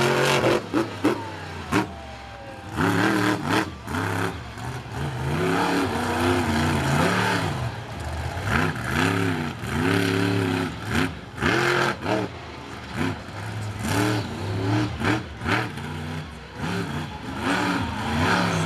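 LumberJack monster truck's engine revving hard again and again, its pitch climbing and falling roughly once a second, with some short clattering near the start.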